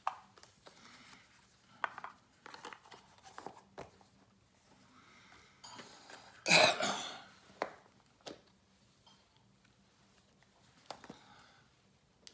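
Light clicks and knocks of a plastic coin capsule and black coin presentation boxes being handled and set down on a granite countertop, with soft rustling between. One louder, noisy sound lasting under a second comes about six and a half seconds in.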